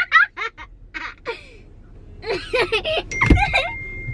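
A young girl giggling and laughing in short bursts. About three seconds in there is a thump, and a steady high tone starts at the same moment and carries on.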